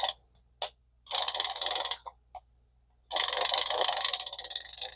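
Vintage Zebco spincast reel being cranked, its mechanism giving off rapid ticking: a short spell of about a second, a few single clicks, then a longer spell of about three seconds.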